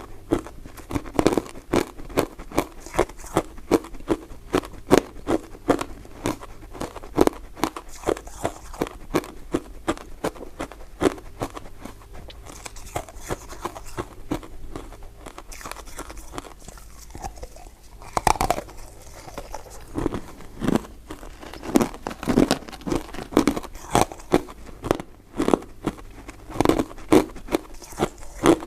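Close-miked chewing of soft, powder-coated mint sweets: a steady run of quick, irregular mouth clicks and smacks, a little sparser in the middle.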